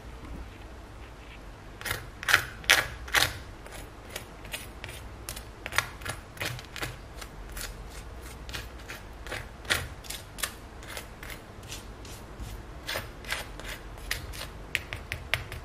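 A metal spoon tapping and scraping the crisp skin of a freshly air-fried roast chicken, giving sharp crackly clicks that show how crispy the skin is. The loudest clicks come about two seconds in, with scattered ones after and a quicker run of taps near the end.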